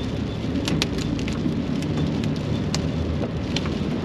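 Rock salt thrown up from the road pelting a pickup truck in scattered sharp ticks, over a steady tyre and road rumble inside the cab.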